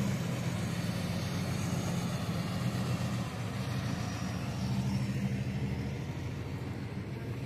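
Cummins ISX diesel engine of a bobtail International semi tractor running steadily at low revs as the truck is driven slowly past. It swells slightly about five seconds in.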